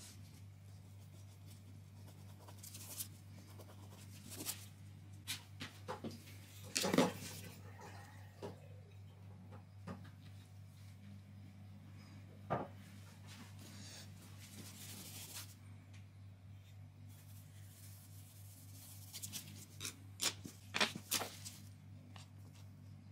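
Scattered light clicks, taps and scrapes of small hand tools working a burn hole in a laminate floor. Heaviest near the start, around 7 s, and again near the end, over a steady low hum.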